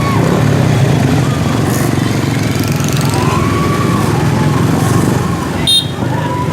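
Dense motorbike traffic running steadily, with a horn blowing long held notes about every three seconds and a short sharp blast near the end.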